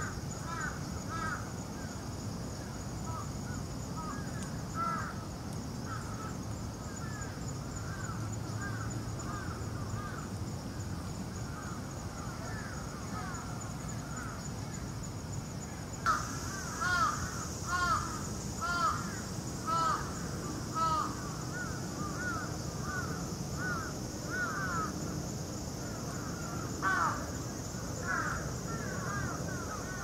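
Crows cawing in repeated series, loudest about halfway through in a run of roughly one caw a second, over a steady high-pitched drone.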